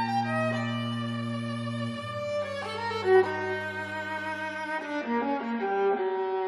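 Slow, expressive classical music for viola and string orchestra: sustained bowed notes, with a low note held for about two seconds under a moving melodic line and a sharp accent about three seconds in.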